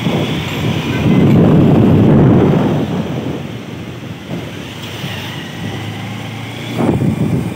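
Wind buffeting the microphone of a phone filming from a moving vehicle, over the vehicle's steady road noise. The wind is loudest from about one to two and a half seconds in, and gusts again near the end.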